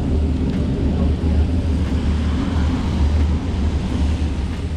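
Steady low rumble with an even hiss of rain over it, outdoors in a downpour.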